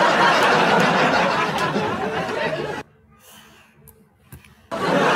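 A loud burst of laughter that stops suddenly about three seconds in and starts again just as abruptly near the end.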